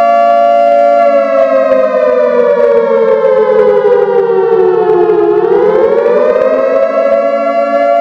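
Loud bass-boosted siren wailing. It holds a steady pitch, then slowly falls in pitch for about four seconds, swings back up, and holds steady again near the end.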